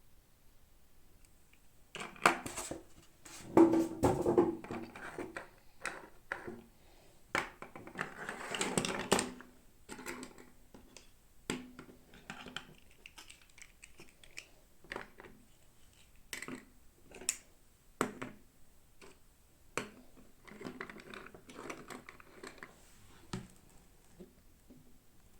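Hands unboxing small plastic toys: irregular clicks and taps with short bursts of rustling and scraping of packaging, busiest in the first half.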